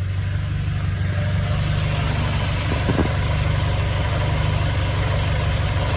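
Honda K24 2.4-litre four-cylinder engine idling steadily, running on its own shortly after starting.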